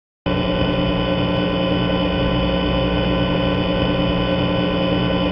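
A loud, steady droning tone made of many overtones starts abruptly just after the beginning and holds without change.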